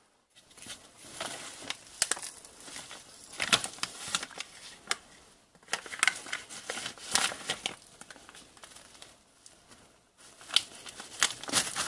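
Paper letters crinkling and rustling as they are handled and unfolded, in irregular spells with a short lull near the end.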